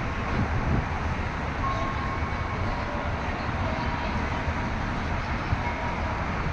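Steady rumble of road traffic, with faint held high tones sounding over it a few times.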